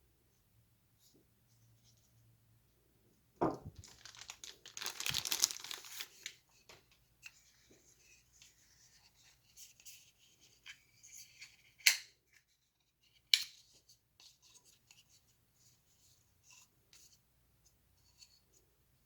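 Packaging being handled: a sharp knock, then about two seconds of tearing, followed by light rustling and two sharp clicks a second and a half apart.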